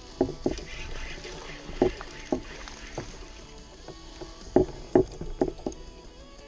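Hollow knocks and slaps on a plastic fishing kayak's hull, about eight of them at uneven intervals, each short with a brief ring, over a faint steady background.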